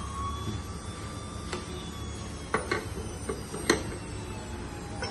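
Drill bit resharpening machine's grinder motor running with a steady hum and a whine that sinks slowly in pitch, with a few sharp clicks from the machine being handled.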